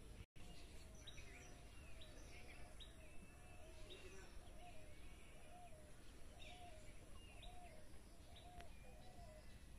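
Faint birdsong: a low, arching call repeated about twice a second, with higher short chirps over it, above a low steady background noise. The sound drops out completely for a moment just after the start.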